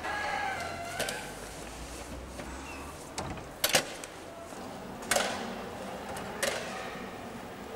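Old wooden door creaking, falling in pitch, then a handful of sharp knocks and clacks at irregular gaps. The loudest is a quick double knock about three and a half seconds in. A low hum stops about three seconds in.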